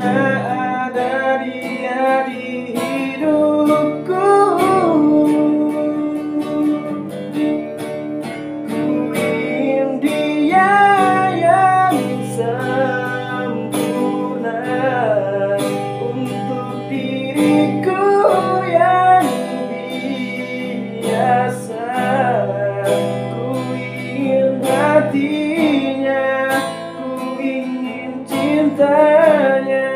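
A male voice singing a slow Indonesian pop ballad in long, wavering high notes, accompanied by a strummed acoustic guitar.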